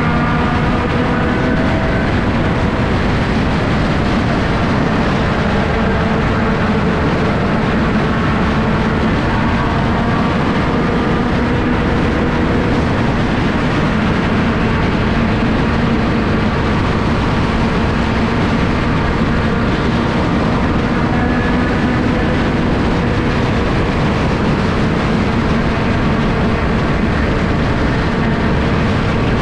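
Onboard sound of a sport compact race car lapping at speed: its engine running hard and steady, with heavy wind and road noise, the engine note rising and falling a little through the laps.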